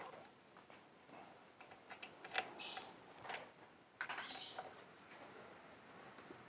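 Scattered light clicks, taps and short scraping rustles of hand work on motorcycle parts, the sharpest click about two and a half seconds in and a rougher scrape at about four seconds.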